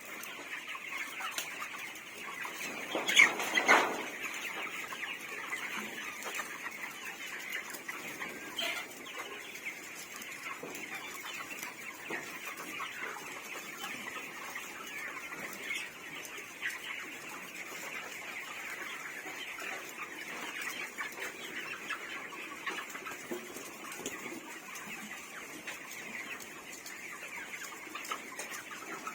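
Flock of 28-day-old broiler chickens clucking and peeping in a steady, dense chatter, with one louder burst about three seconds in.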